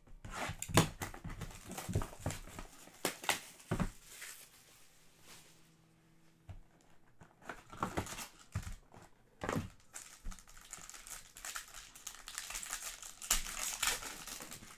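Trading card box being opened by hand: scattered crinkles and clicks of packaging in bursts, with a lull about halfway. Near the end comes a dense, steady crinkling as the foil pack inside is torn open.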